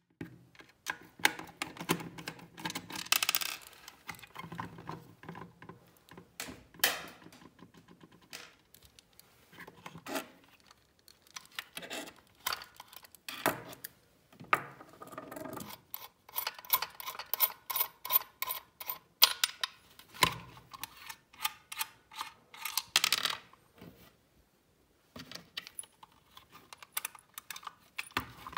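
A small precision screwdriver backing screws out of a Garrett Ace 250 metal detector's plastic control housing, and the case being handled and pried open: many irregular clicks, taps and scrapes of plastic and metal.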